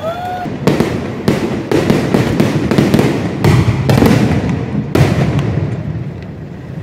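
Fireworks display: aerial shells bursting in a rapid barrage of loud bangs with crackling between them. The bangs start about a second in, are heaviest in the middle and thin out near the end.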